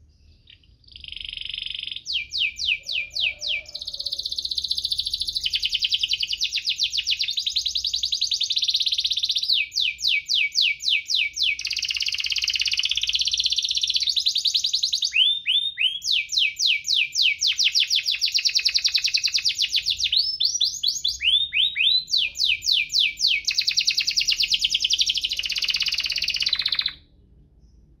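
Domestic canary singing a long, high-pitched song of very fast trills and rolls, with a few quick rising chirps between phrases. It starts about a second in and stops shortly before the end.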